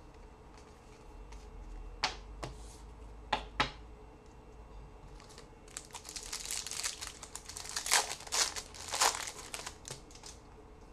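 Crinkling and tearing of a trading-card pack wrapper as a pack is opened and the cards handled, with a few sharp clicks early and a dense stretch of crinkling in the second half.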